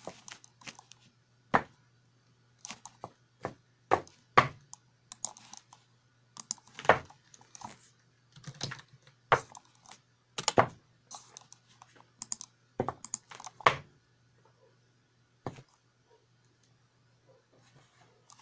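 Computer keyboard keys tapped and struck at an uneven pace, some hits much louder than others, over a faint steady low hum. The tapping thins out about two thirds of the way through, leaving only an odd click.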